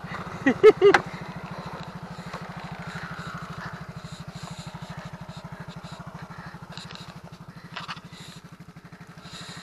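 Small motor scooter engine running steadily, with an even, fast low pulse. A short vocal exclamation comes about half a second in.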